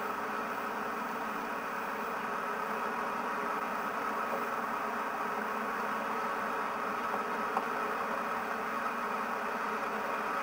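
Steady, unbroken rushing noise of the flooded North River running high.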